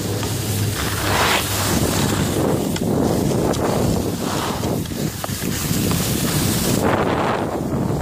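Wind buffeting the microphone during a run down a ski slope, with swells of edges scraping over packed snow at each turn, four or so in all.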